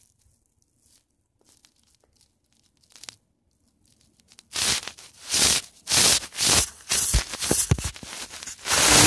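Nearly silent at first, then from about halfway a run of loud, uneven scraping and rubbing bursts right against the phone's microphone: the phone being handled and moved about.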